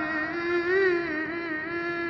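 Man's voice reciting the Quran in melodic tajwid style, holding one long ornamented note on a single word with its pitch gently wavering.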